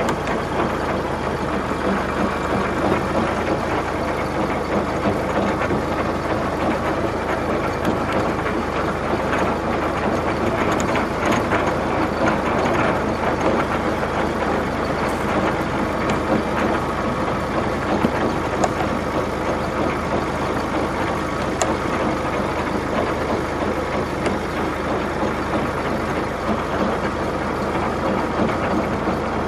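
A heavy vehicle engine idling steadily with a low hum, an engine sound effect, since the plastic toy tractor has no motor of its own.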